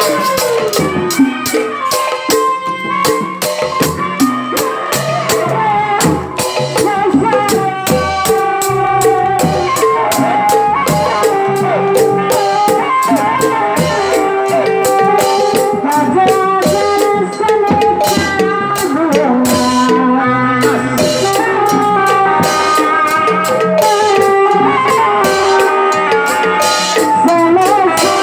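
Music with a steady percussion beat under a melody.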